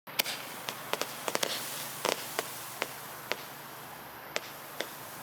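About a dozen sharp, irregular clicks or taps over a steady hiss, the loudest near the start and about two seconds in.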